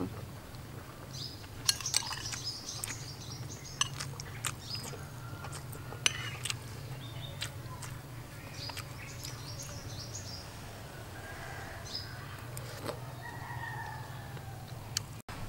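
Birds chirping in short high calls, with scattered sharp clicks of chewing and spoon-eating close to the microphone, over a steady low hum.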